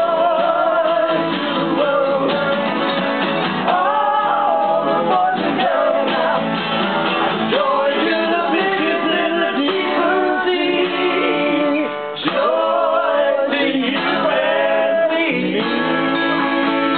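A man singing to two acoustic guitars played together.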